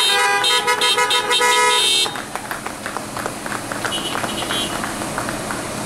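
Several car horns honking at once, held and then in quick short toots, stopping about two seconds in; after that, quieter scattered short sharp sounds and a brief toot.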